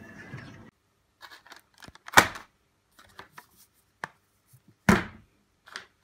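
Canteen hubbub cuts off within the first second. Then comes a series of knocks and taps as a cardboard food box and a drink bottle are handled and set down on a kitchen worktop. The two loudest knocks fall about two seconds in and about five seconds in.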